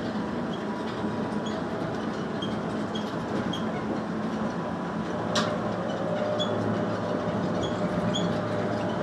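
Airport people-mover train in motion, heard from inside the car: a steady rumble of the running gear with faint steady tones above it. One sharp clank comes about five and a half seconds in.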